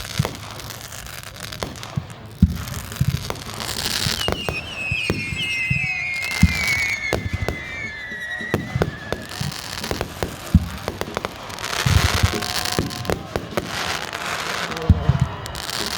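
Fireworks going off: a string of sharp bangs and crackling bursts. Several whistles falling in pitch sound together from about four seconds in, lasting some five seconds.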